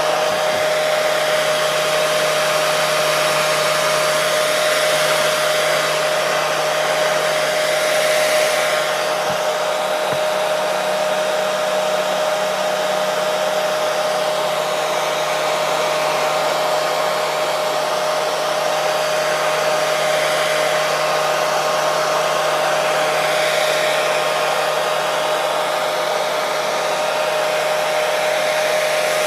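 Hair dryer running steadily: a constant rush of blown air with a steady motor whine.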